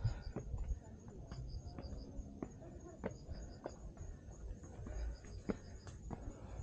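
An insect chirping in short trains of about five quick, high chirps at one pitch, repeating every second and a half or two, over a low rumble with scattered clicks and knocks.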